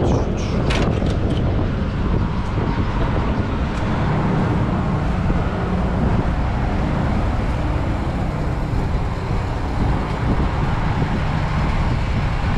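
Semi-truck diesel engine idling steadily, with a few sharp clicks about a second in.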